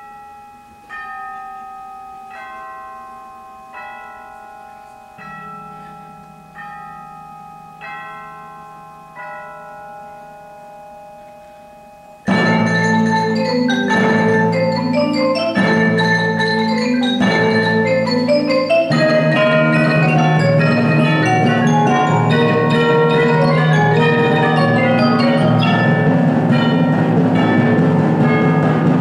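Percussion ensemble playing. First come single bell-like mallet strokes, evenly spaced about a second and a half apart and each ringing out, with a low held tone joining about five seconds in. About twelve seconds in the full ensemble enters loudly in a dense, fast passage of marimbas and other mallet instruments with drums.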